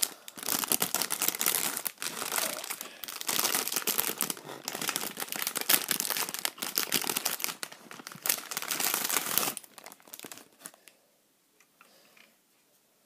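Plastic wrapping crinkling and rustling as it is handled and pulled away from a model car, stopping about three quarters of the way through.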